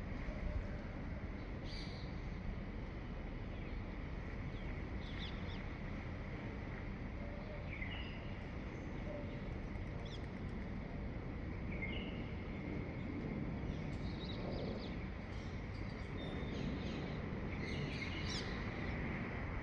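Dawn birdsong: short high chirps from songbirds every few seconds, more frequent near the end, over a steady low background rumble.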